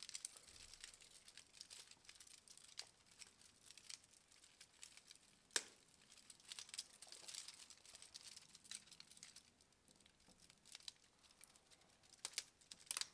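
Faint clicking and rustling of 3D-printed plastic Hoberman sphere parts as hands fit a piece into place, with one sharper click about five and a half seconds in and a quick cluster of clicks near the end.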